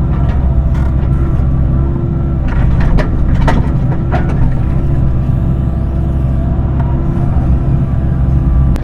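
Excavator's diesel engine running steadily at working speed, with a few sharp knocks about three to four seconds in.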